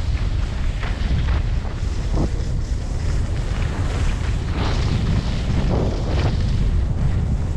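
Wind buffeting the microphone of a skier's camera during a downhill run, a heavy steady rumble. Skis hiss and scrape over packed, groomed snow several times in turns, most strongly about five and six seconds in.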